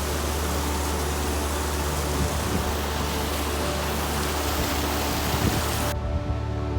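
Background music with a low steady drone, under a loud, even rushing noise that cuts off abruptly about six seconds in.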